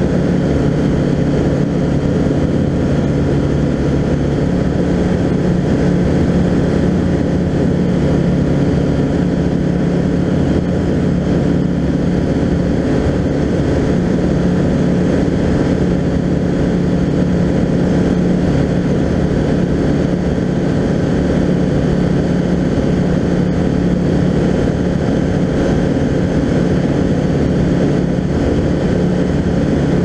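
Skyranger Classic microlight's engine and propeller running at a steady setting in flight, heard from inside the cockpit as an even drone.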